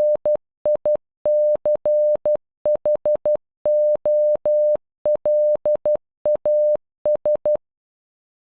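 Morse code played as a single steady electronic beep tone, keyed in short dots and long dashes spelling NICHOLAS (-. .. -.-. .... --- .-.. .- ...) once at normal speed. The tone stops about a second before the end.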